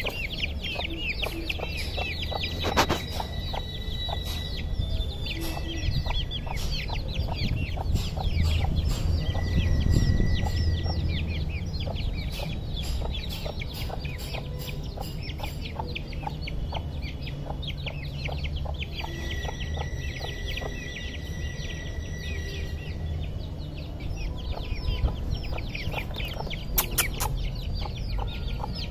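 Eight-week-old aseel chicks peeping quickly and without a break as they forage with their hen, over a steady low rumble.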